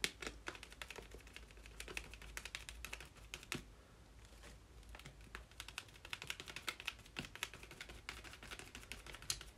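Faint, irregular light taps and rustles of a stencil being pressed flat on a card page, then quicker dabbing of a paint-loaded sponge through the stencil in the second half.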